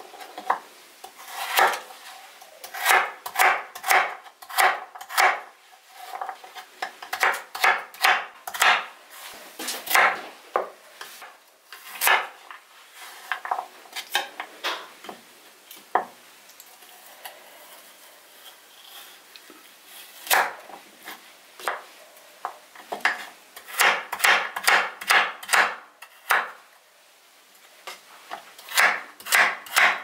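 Kitchen work on a wooden surface: runs of quick knocks, several a second, like a knife chopping on a wooden board, mixed with clinks of dishes and cutlery, with short pauses between runs.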